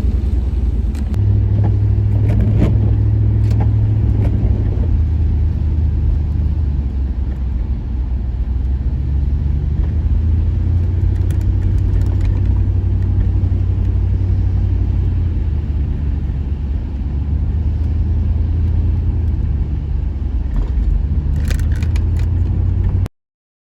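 Car running, a steady low rumble of engine and road heard from inside the cabin, with a few light clicks and knocks. It cuts off suddenly near the end.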